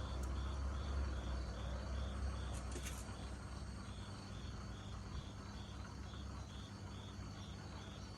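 A cricket chirping steadily, about two or three short high chirps a second, over a low rumble that eases off after about three seconds. There is a brief faint rattle near three seconds.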